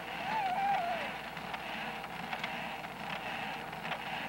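A young child's short, wavering vocal sound, followed by a few faint clicks, over the steady hiss of an old home-video soundtrack.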